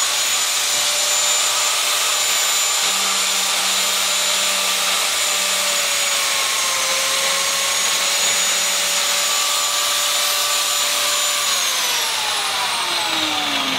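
Biscuit jointer's electric motor running at full speed with a steady high whine. It dips slightly in pitch about halfway through as the spinning blade plunges a slot into the wooden board. Near the end it is switched off and winds down, falling in pitch.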